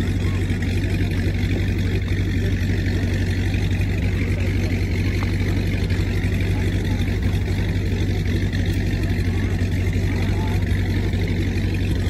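An engine running steadily with a low, even hum that does not change pitch.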